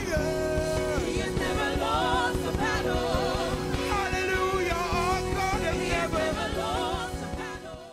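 A church worship band playing with singers vocalising over held chords. The music drops away and cuts off at the very end.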